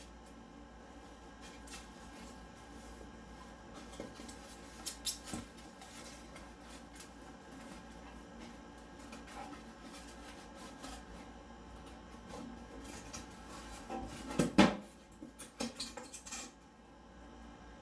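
Rigid foam board panel being pushed and fitted into a table saw's steel cabinet: scraping and rustling of foam against metal, with scattered knocks and clicks, the loudest cluster of knocks about 14 to 15 seconds in.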